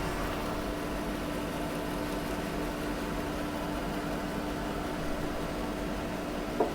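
Electric power saw in a woodturner's workshop running steadily with no cut under way: a constant, even hum. A light tap near the end.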